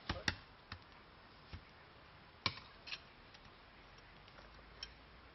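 Scattered sharp clicks and light knocks, about seven, spaced irregularly: a hand hammer striking a poorly fused, crumbly iron bloom on a tree-stump anvil.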